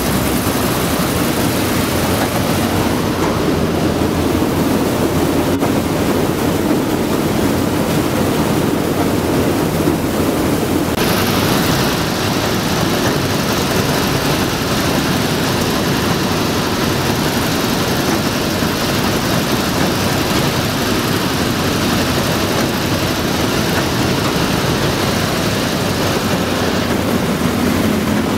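WWII-era LVT amphibious tractor's engine running loudly and steadily while the vehicle moves through water. A brighter hiss joins about eleven seconds in.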